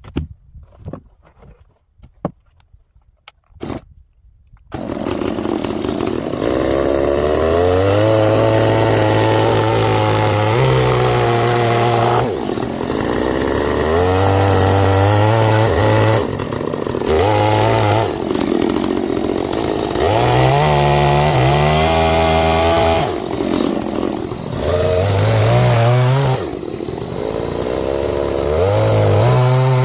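A few sharp knocks, then about five seconds in a chainsaw comes in loud, milling a cedar slab, its engine repeatedly revving up and dropping back every few seconds.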